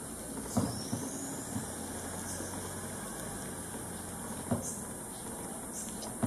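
Steady low hum and hiss, with a few soft knocks: three close together about half a second to a second and a half in, and one more about four and a half seconds in.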